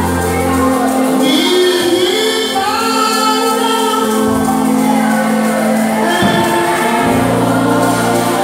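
Live gospel worship music: a man sings into a microphone with other voices singing along, over an amplified backing of held bass notes that change every second or two.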